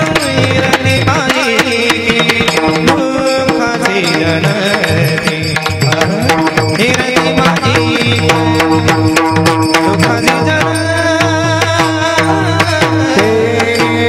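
Varkari devotional kirtan music: a drum beating and small brass hand cymbals (tal) struck in a steady rhythm, over a sustained melodic line.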